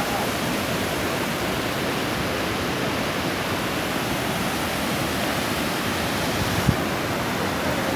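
Floodwater pouring over a concrete dam's weir and spillway, a steady rushing roar, with one brief knock near the end.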